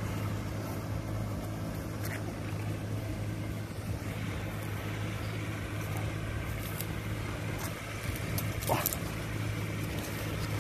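Kubota diesel engines of a cào cào rice-field mud-levelling rig running at a steady drone.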